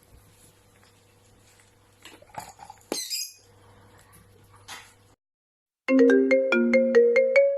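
Faint room tone with a low hum and a short high chirp about three seconds in. After a moment of silence, a loud electronic jingle of clear, separate notes starts near the end, like a ringtone melody.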